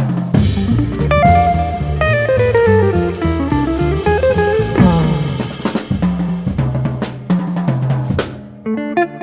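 Jazz trio playing: a hollow-body archtop guitar plays a line that steps downward and then climbs back up, ending in a quick falling run, over plucked double bass and drum kit. The band thins out for a moment just before the end.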